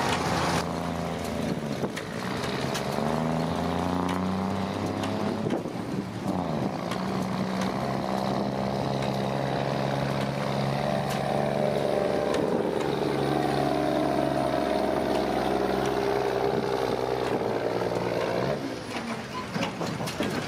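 Heavy diesel lorry engine labouring under full load while dragging a tractor-pulling sled. It climbs in pitch, drops back and climbs again, then eases off near the end.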